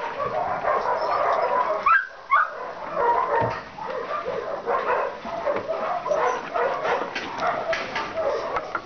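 Dog whining and yipping, with two short, sharp yips close together about two seconds in.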